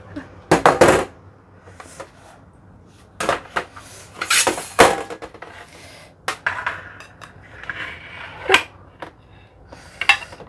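Clatter and knocks of a utensil, plates and fruit pieces against a stainless steel tray as cut fruit is moved onto it. The loudest clatter comes just under a second in, a longer one around four to five seconds, then scattered single knocks.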